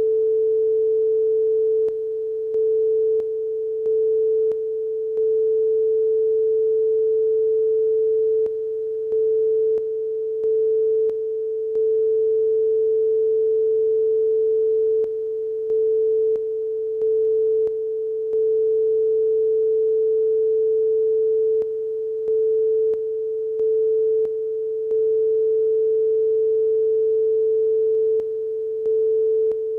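Broadcast stereo line-up test tone: one steady pure tone a little below 500 Hz, cut by brief breaks in a repeating pattern of three or four quick gaps followed by a long unbroken stretch, every six or seven seconds.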